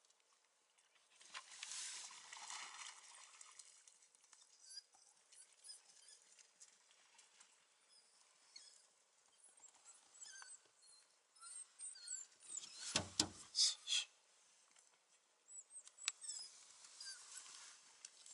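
African painted dogs giving many short, high-pitched squeaking twitters, the social calls of a pack at play. Under the calls there is scuffling, and a few louder thumps come about thirteen seconds in.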